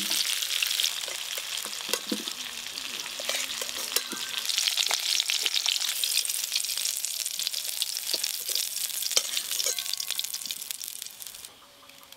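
Potato and cauliflower pieces sizzling in hot mustard oil in a steel kadai as they are ladled out, with scattered clicks through the hiss. The sizzling stops suddenly near the end.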